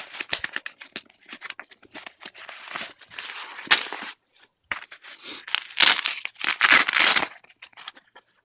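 Nylon tactical vest being handled: rustling fabric and straps, short clicks, and rasping tearing noises. The longest and loudest rasps come in the second half.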